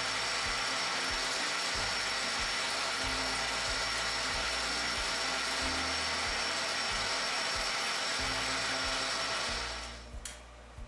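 South Bend metal lathe running while a knurling tool presses into a spinning steel part, a steady grinding, ratcheting noise with a high whine, under quiet background music. The machining noise falls away about nine and a half seconds in.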